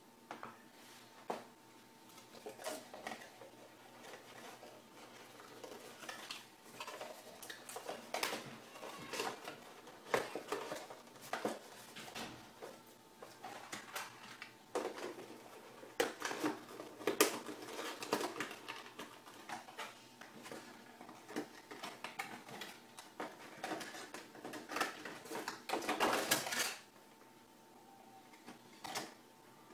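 Cardboard packaging being handled on a tabletop: scattered taps, knocks and scrapes as the box, its inserts and a hard carrying case are moved about, with a longer scraping rustle near the end.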